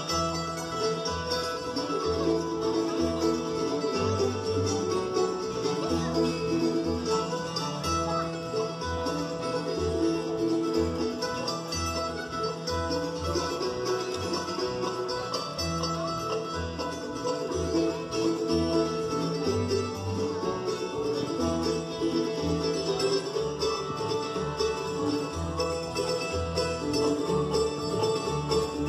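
Live bluegrass band playing an instrumental: banjo, mandolin, acoustic guitars and resonator guitar over an upright bass keeping a steady beat.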